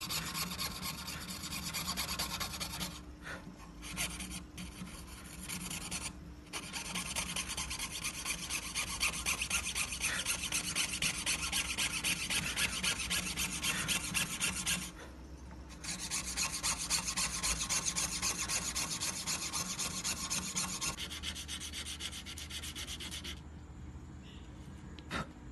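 Hand fretsaw blade cutting through coconut shell in fast, even strokes, broken by a few short pauses. Near the end it gives way to quieter rubbing of the cut pieces on sandpaper.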